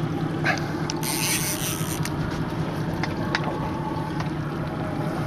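Lever-drag fishing reel's drag giving line in a brief rasping burst about a second in as a hooked fish runs, over the steady hum of the boat's engine, with a few short clicks.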